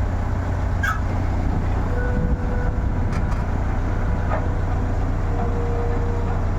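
Heavy diesel engine of a backhoe or its carrier truck running steadily, with a few faint clicks and knocks over it.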